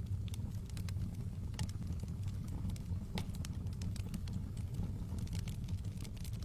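Wood fire burning in a fireplace: a steady low rumble of the flames with scattered sharp crackles and pops.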